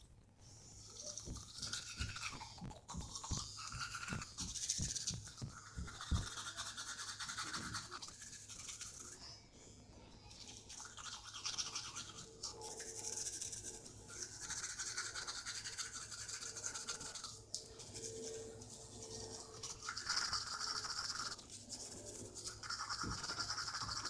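Toothbrush scrubbing teeth in bouts of a few seconds with short pauses. A few light knocks come in the first several seconds.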